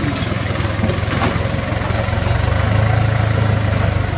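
An engine running steadily with a low hum, a little louder in the second half.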